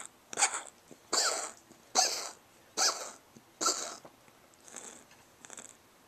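A cat coughing in a run of short, harsh coughs under a second apart, five strong ones followed by softer ones near the end.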